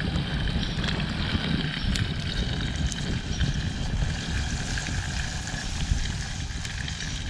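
Breaded fish frying in oil in a pan over a campfire: a steady crackling sizzle over a low rumble.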